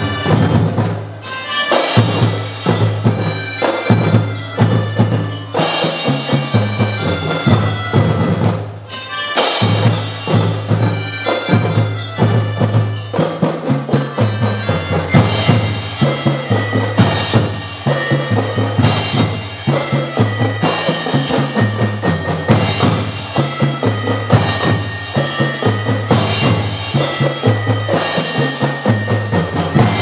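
A children's marching drum band playing: drums strike a busy steady beat under a bright, ringing melodic line. The music dips briefly twice, about a second in and again around eight seconds in.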